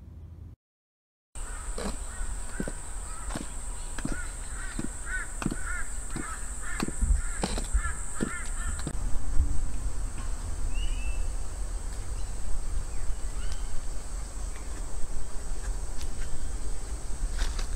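Stiletto heels of 7-inch platform ankle boots clicking on a concrete platform at a slow, even walking pace. Over the first half a bird calls in a quick run of repeated cries, with a steady high-pitched drone and a low rumble behind.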